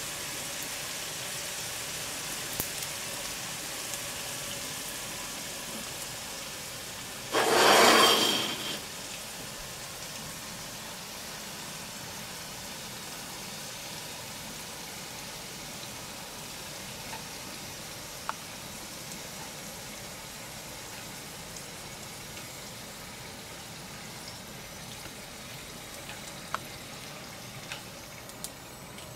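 Giant mealworms (superworms) deep-frying in oil heated to about 300 °C in a frying pan: a steady sizzle that grows gradually quieter. About seven seconds in there is one sudden loud burst lasting about a second and a half. A few light clicks come in the second half, as chopsticks lift the worms out.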